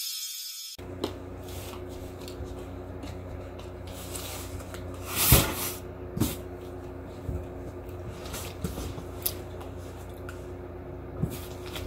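Intro music cuts off under a second in, leaving a steady low room hum. Over the hum come a handful of short knocks and bumps as a cardboard shipping box and things on the table are moved and handled; the loudest bump comes about five seconds in.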